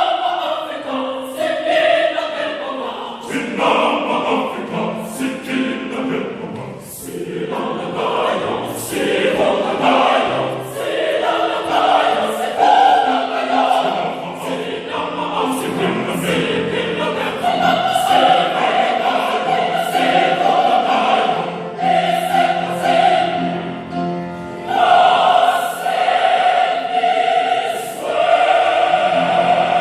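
Choir singing in harmony, the voices holding long sustained notes through much of the second half.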